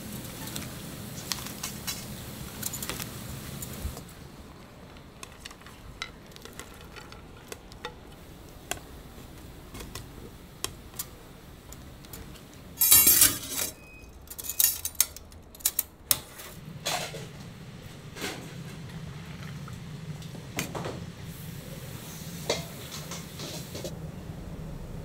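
Kitchen work sounds: scattered knocks and clatter of utensils and dishes, with a few louder, noisy bursts around the middle.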